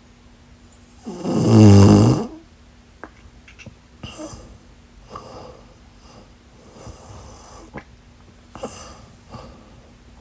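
A sleeper snoring: one loud, pitched snore about a second in, then a run of much softer snoring breaths every second or two.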